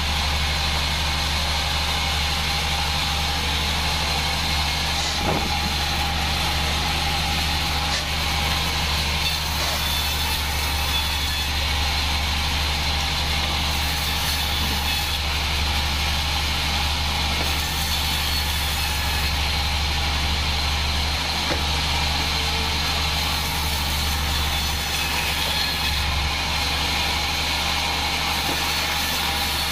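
Homemade vertical band sawmill running steadily: a low, even engine drone with the whir of the band blade as mahogany boards are sawn. A faint knock about five seconds in.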